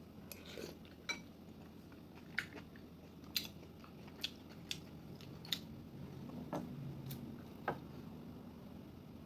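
Someone eating: chewing, with a spoon or fork clicking against a dish about eight times.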